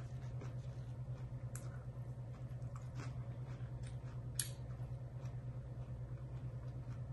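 Someone eating a fresh garden salad: faint, scattered crunches and small clicks, one sharper click about four seconds in, over a steady low hum.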